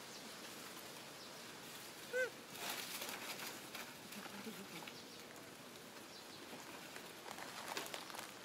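A macaque gives one short coo, rising and then falling in pitch, about two seconds in, followed by a second or so of rustling.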